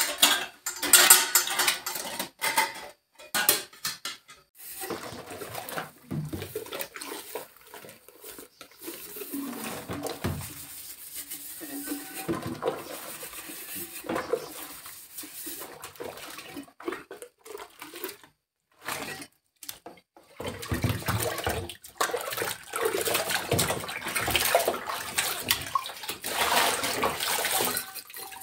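Dishes being washed by hand. Utensils clink as they go onto a dish rack in the first few seconds, then come scrubbing and sloshing in soapy sink water. From about two-thirds of the way through, water splashes steadily as a metal jug is rinsed over a basin.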